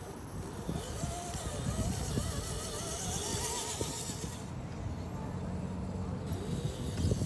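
Whine of a small RC rock crawler's brushed electric motor and gears, rising and falling in pitch with the throttle as it crawls over sand and driftwood.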